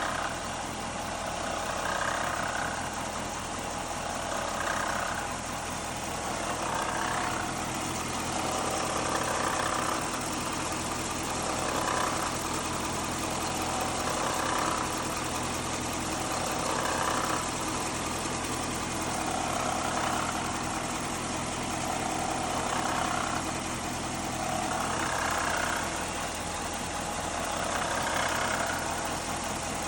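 A 5.7 L Hemi V8 idling, with a rattle from a failing water pump. The rattle swells and fades about every two and a half seconds over the steady engine note.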